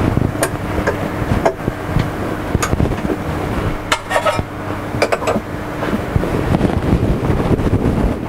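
Light metal clinks and taps as a 19 mm four-flute end mill is fitted and tightened in the spindle collet of a CNC-converted Sieg X2 mini mill, over a steady low machine hum.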